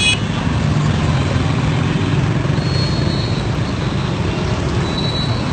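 Steady low noise of city street traffic, motorcycle and car engines running close by, with a faint high tone twice.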